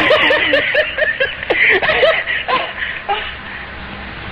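Laughter: a quick run of short, high-pitched 'ha' sounds that dies away about three seconds in.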